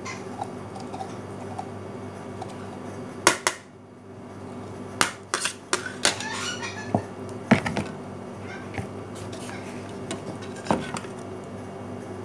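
Small knife peeling a small bottle gourd (upo) over a metal tray: scattered sharp clicks and clinks as the knife and gourd knock against the tray, most of them a few seconds in and through the middle, over a steady low kitchen hum.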